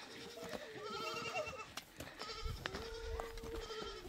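A herd of goats bleating: several quavering calls overlap, then one long, level bleat is held for over a second in the second half.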